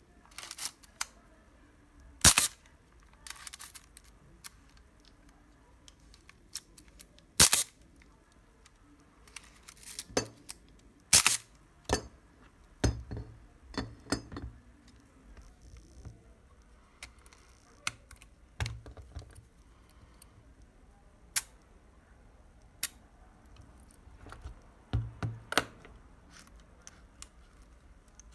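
Irregular sharp clicks and small clacks of a Contarex SLR body and its metal parts being handled and taken apart, a dozen or so, with some duller knocks and handling noise between.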